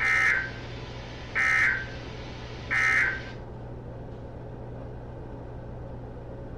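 NOAA Weather Radio EAS end-of-message signal: three short, shrill digital data bursts about a second apart, marking the end of the alert message. Afterwards only the radio's steady background hiss and low hum remain.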